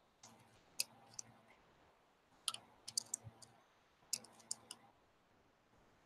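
Faint, irregular light clicks and taps from gloved hands handling a metal belt buckle blank while pressing pieces of sawdust clay into it.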